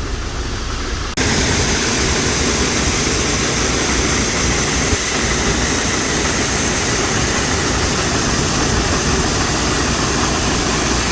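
An engine idling, then about a second in a sudden switch to a loud, steady rush of engine and machinery noise.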